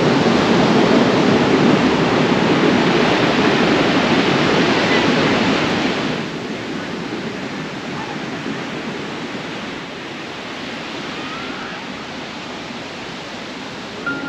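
Steady rushing noise of sea surf and wind on an open beach. It drops noticeably in level about six seconds in.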